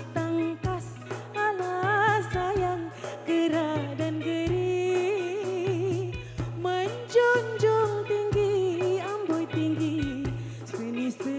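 Woman singing a Malay classic song with marked vibrato, backed by a band with a steady drum beat and a sustained low bass line.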